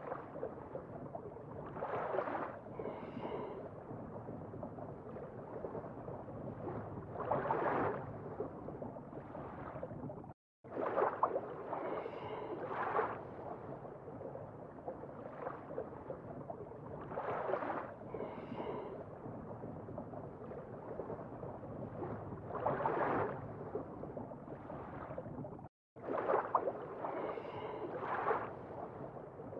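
Looped underwater-style water ambience: a steady rushing wash that swells every few seconds, with short bubbling trickles. It cuts out for an instant twice, about ten and twenty-six seconds in, as the loop restarts.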